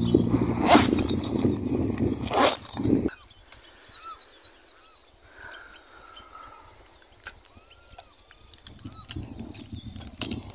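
Handling noise from a canvas backpack being opened, rustling with sharp knocks. About three seconds in it cuts to quiet rural ambience with a few short chirping calls, and rustling through grass near the end.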